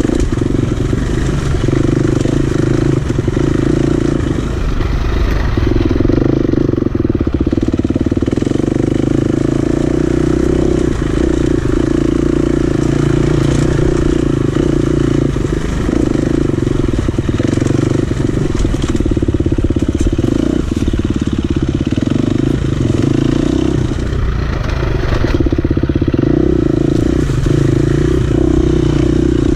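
Dirt bike engine running hard while being ridden along a dirt trail, the engine note dipping briefly every few seconds as the throttle is rolled off and back on.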